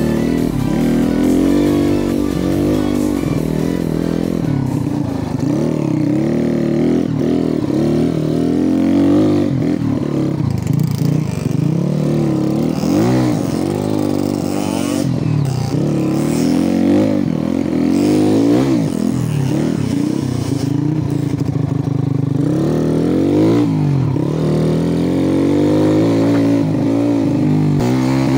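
Trail motorcycle engine being ridden hard over rough dirt, revving up and down over and over as the throttle is opened and shut every second or two.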